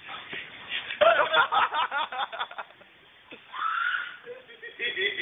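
People laughing in rapid bursts, with a single rising high-pitched squeal about three and a half seconds in.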